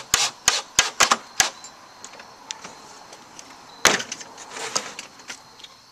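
Cordless drill driving a screw into a 2x4 frame corner, heard as a quick run of sharp clicks over the first second and a half. About four seconds in, one loud knock as the drill is set down on the plywood tabletop, followed by a few lighter clicks.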